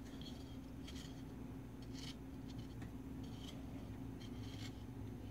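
Steady low electrical hum from a powered-up Leslie 147 tube amplifier on its variac, with a few faint scratchy handling ticks about once a second.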